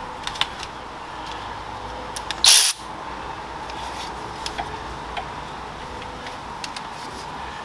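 Scattered light metallic clicks and taps of bolts and tools being worked by hand, with one short loud hiss about two and a half seconds in, over the steady hum of a shop fan.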